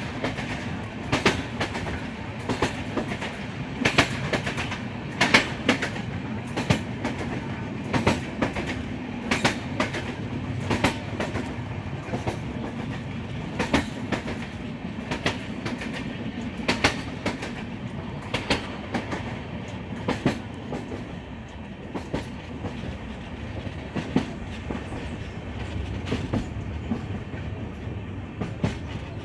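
Moving train's wheels clattering over rail joints: a steady rumble with sharp clicks, often in pairs, every second or so. It eases off somewhat in the last third.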